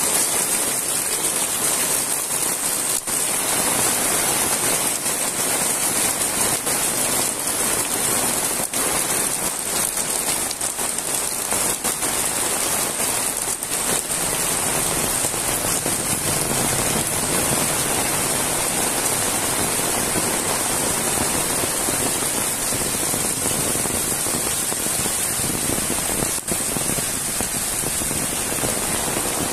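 Heavy rain falling steadily, splashing on wet ground and puddles and streaming off the roof edges.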